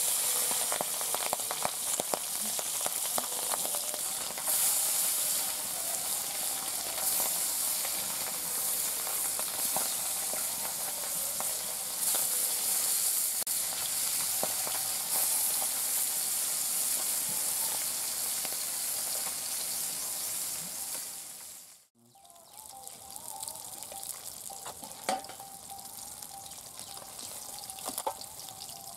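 Tangra fish frying in hot mustard oil in an aluminium karai: a loud, steady sizzle. After a sudden break about three quarters of the way through, the sizzle is quieter, with a few sharp taps of a spatula against the pan as the fish are turned.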